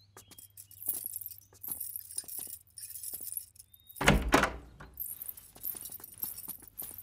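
A heavy wooden double door shutting with a loud, deep thud about four seconds in, among scattered footsteps and a light metallic jingling.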